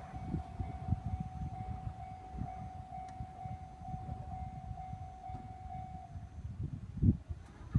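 Japanese railway level crossing's electronic warning bell ringing about twice a second, then stopping about six seconds in as the crossing's warning ends after the train. Under it is a low rumble, with a loud low thump about seven seconds in.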